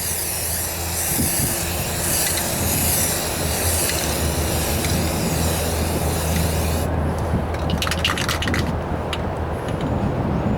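Aerosol can of Rust-Oleum automotive primer spraying in a long hiss that stops abruptly about seven seconds in, followed by a few short clicks. Wind buffets the microphone with a steady low rumble throughout.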